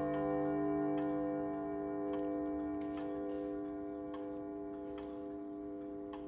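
Junghans grandfather clock's chime rods ringing on and slowly fading after a strike, with the movement ticking underneath.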